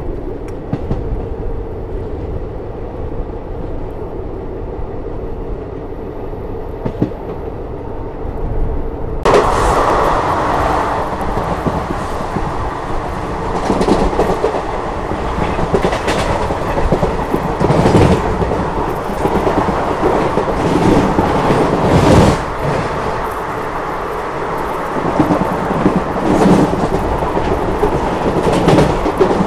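Passenger train running at speed, wheels rumbling and clattering over rail joints and points, heard from the coach doorway. About nine seconds in the sound suddenly becomes louder and brighter, with heavy irregular knocks every few seconds.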